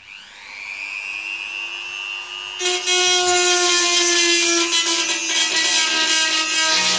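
Low-powered hand-held rotary tool starting up, its motor whine rising in pitch, then its small diamond disc grinding into the edge of toughened glass from about two and a half seconds in: a loud, gritty scraping over the steady whine.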